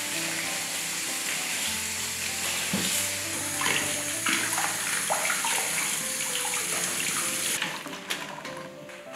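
Kitchen tap running into a stainless-steel sink while young celtuce leaves are rinsed by hand under the stream, with splashing as the leaves are rubbed. The water sound cuts off suddenly near the end.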